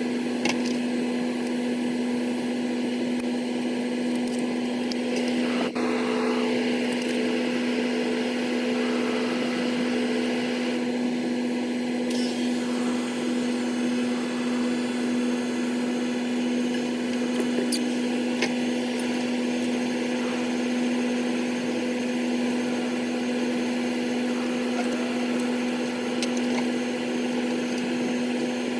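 Steady electrical machinery hum, with a few sharp clicks and knocks of hand tools on metal during a fan motor swap. The audio appears sped up.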